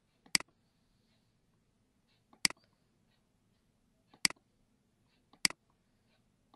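Computer mouse button clicking four times, one sharp click every second or two, each with a faint softer click just before it, over a faint low hum.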